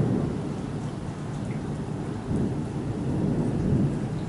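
Thunder rumbling as it rolls away, fading and then swelling again twice, over the steady hiss of falling rain.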